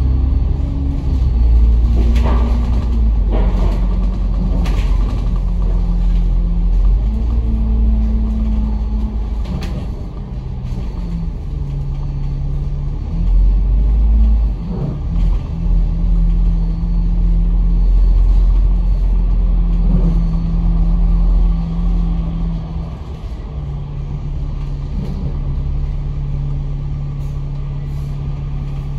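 Franchised bus heard on board while it is driving: a steady low engine drone and rumble whose pitch steps up and down several times as the bus changes speed.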